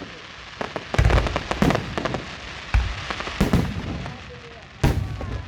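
Fireworks shells bursting in a series of sharp bangs, about one a second, with crackling trailing after each.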